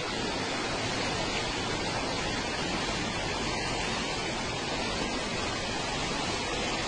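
Steady rushing noise of fast-flowing floodwater surging along a flooded street.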